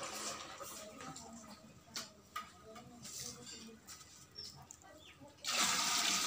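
Water poured from a clay pot into a clay pot on a wood fire, a steady splashing rush that starts suddenly near the end. Before it, faint background with a few sharp clicks and a couple of brief high chirps.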